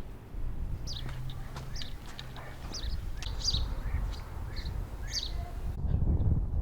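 Small birds chirping in short, high, repeated calls over a low steady rumble, with a louder low swell near the end.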